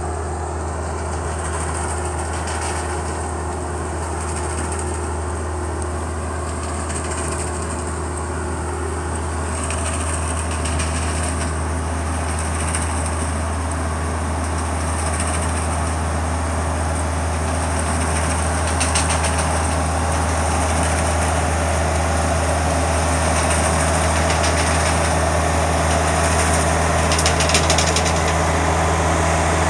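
Self-propelled grape harvester and a Kubota M8200 diesel tractor running steadily as they work a vineyard row, the harvester shaking grapes off the vines; the engine sound grows gradually louder as the machines draw closer, with a couple of brief rattles about two-thirds of the way in and near the end.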